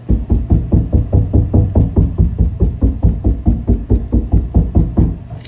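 A gloved hand knocks rapidly on the first coat of glass putty laid over mesh tape in a fiberglass tub wall, about five knocks a second. The knocking is a test of the putty, and shows this foundation coat has set.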